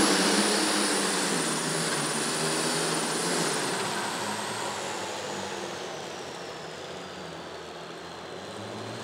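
Methanol-fuelled John Deere pulling tractor running hard under a pull, its very large turbocharger whining high over the engine. The whine holds for a few seconds, then falls steadily in pitch as the sound fades.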